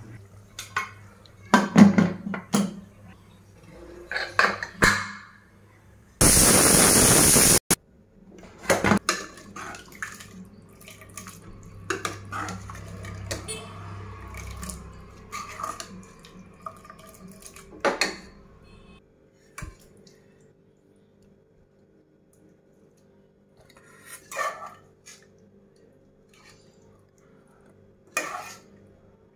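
Metal ladle clinking, knocking and scraping against an aluminium pressure cooker and a steel plate, in scattered strokes with a quiet spell in the latter half. About six seconds in, a loud steady hiss lasts about a second and a half.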